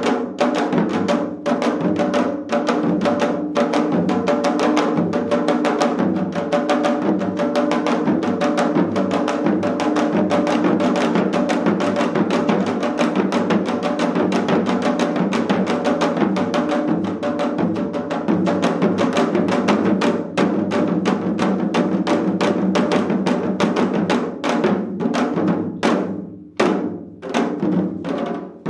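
Four janggu (Korean hourglass drums) played together in a fast, dense rhythm of drum strokes. Near the end the rhythm opens into sparser strokes with brief gaps.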